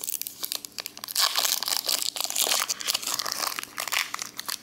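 Pokémon booster pack wrapper crinkling as it is handled in the hands, a dense run of irregular crackles that is loudest about a second in.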